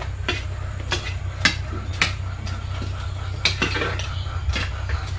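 An eating utensil clinks against a dish in sharp, irregular clicks, roughly one every half second to a second, while food is being eaten. A steady low hum runs underneath.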